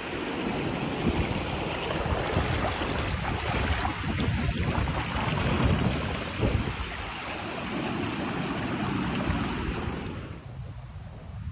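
Steady rushing water with gusts of wind buffeting the microphone; the hiss of the water drops away abruptly near the end.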